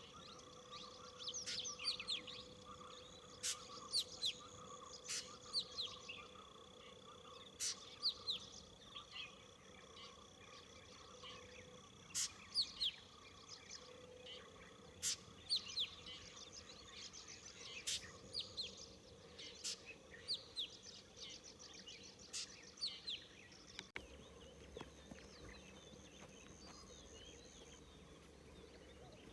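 Forest birds giving many short, quick, falling chirps and calls, over a steady high-pitched insect drone. About three quarters of the way through, the background changes abruptly.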